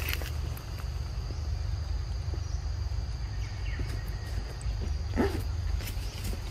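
Forest insects keep up a steady high buzz over a low rumble. About five seconds in comes one short animal call that rises and falls.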